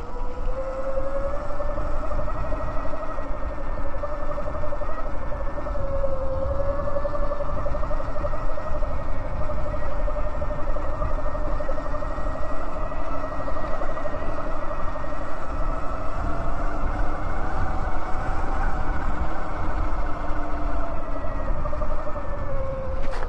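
Electric bike motor whining steadily while riding, its pitch rising and falling slightly with speed, over low wind rumble on the microphone.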